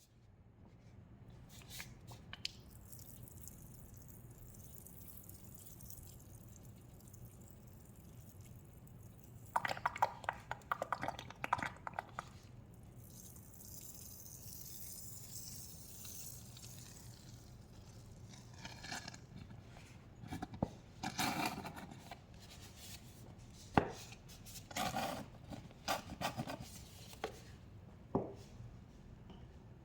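Liquid pine cleaner, dyed blue, sloshing and dripping, with scattered bursts of small crackly clicks and a stretch of hiss midway, over a faint steady hum.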